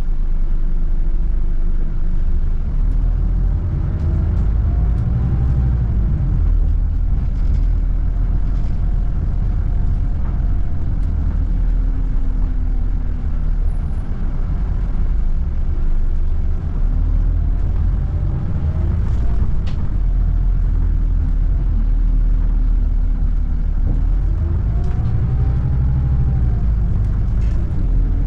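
Road vehicle engine running with a heavy, loud rumble, its pitch rising and falling several times as it accelerates and changes gear.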